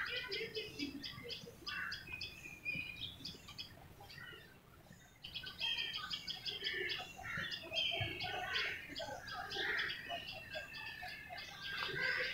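Many birds chirping and calling together in a dense chorus of short, high notes, thinning briefly about four to five seconds in.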